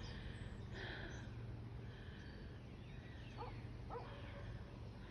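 Quiet outdoor ambience with a faint low steady hum and two short, faint animal calls about three and a half and four seconds in.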